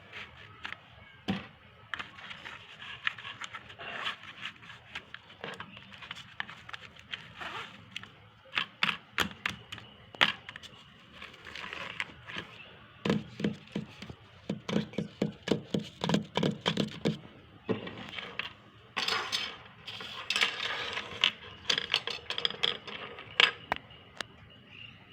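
Packaging and a new pouch being handled: irregular crackling, rustling and sharp clicks, with a run of soft thumps in the middle.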